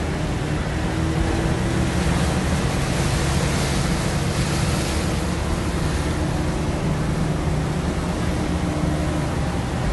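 Fishing boat engines running with a steady low drone over surf washing against a rocky shore; a louder rush of surf comes between about two and five seconds in.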